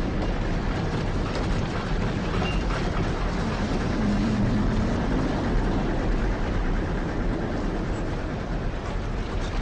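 Steady, rumbling roar of storm wind and rough surf.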